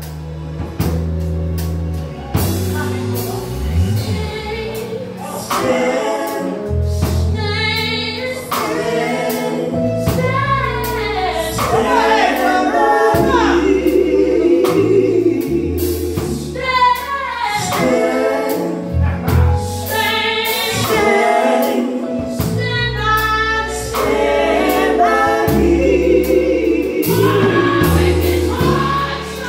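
A gospel vocal group of women singing together into microphones, amplified through a PA speaker, over a backing with a moving bass line.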